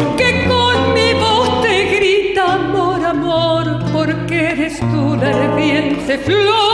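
A woman singing with a wide vibrato over a man's acoustic guitar accompaniment, holding long notes across the guitar's changing bass notes.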